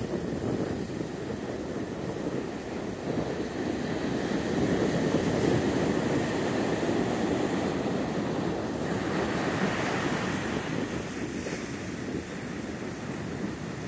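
Ocean surf breaking on a sandy beach, a continuous rush of waves, with wind buffeting the microphone. About nine seconds in, a brighter hiss rises as a wave's foam washes up the sand.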